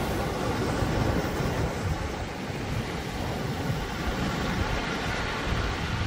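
Sea waves washing and breaking against a rocky shore lined with concrete tetrapods: a steady wash of surf with an uneven low rumble underneath.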